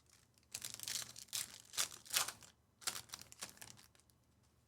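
Trading cards in plastic sleeves and bags being handled: a run of crinkling, rustling bursts that stop shortly before the end.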